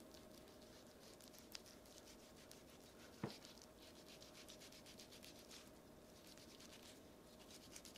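Very faint scratching of a knife slicing through raw chuck beef, with a short knock about three seconds in.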